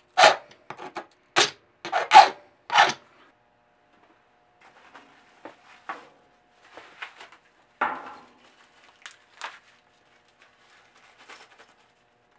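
Hammer blows on a concrete floor, about six sharp strikes in the first three seconds, the loudest of them. After that, softer clinks, scrapes and a few knocks of sheet-metal lathe-stand parts being handled and fitted.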